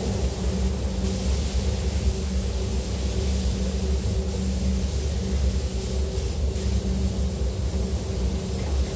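Compressed-air spray guns hissing as coating is sprayed onto a car body, over the steady low hum of a paint booth's ventilation.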